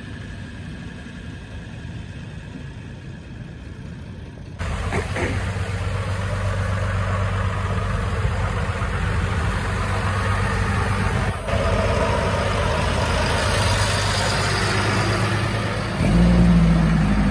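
Launch vehicle engines running, the 4x4 tow vehicle and the beach tractor, in a few short takes. A quieter engine hum at first turns suddenly louder about four and a half seconds in, with a rushing noise over it. The sound changes abruptly again about eleven seconds in and once more near the end.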